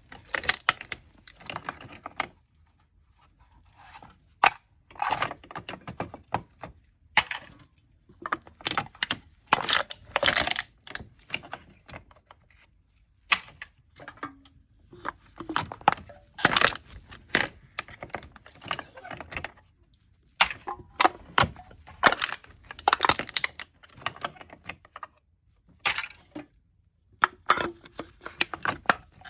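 Aluminium drink cans being crushed: bursts of crinkling, crackling metal, each lasting a second or two, with short pauses between them.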